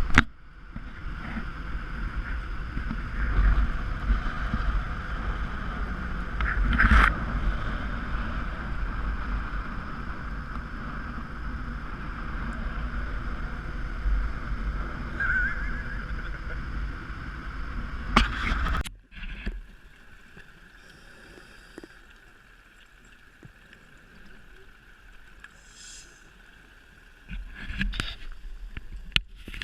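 Boat engine running steadily, with water noise. About nineteen seconds in, the sound cuts abruptly to a quieter, more distant hum with a few clicks.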